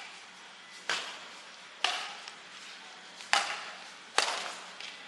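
Badminton racket strings hitting a shuttlecock back and forth in a rally: four sharp strikes about a second apart, each fading out briefly.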